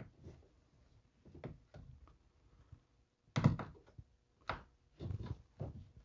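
Plastic interior trim piece being pressed and clipped into a Mercedes-Benz C300 door: a few faint knocks and clicks, the clearest about three and a half seconds in and a small cluster near the end, as it locks into place.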